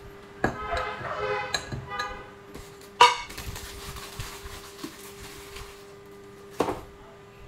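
Espresso-machine portafilter being handled: a sharp metal knock about three seconds in, a soft hiss after it, and a second knock near the end, over a steady hum. A short pitched, wavering sound comes in the first two seconds.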